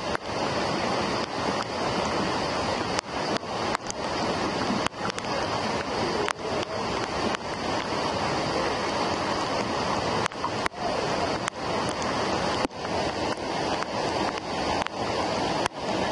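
Waterfall: a steady, loud rush of falling water, broken by many brief sharp dips in level.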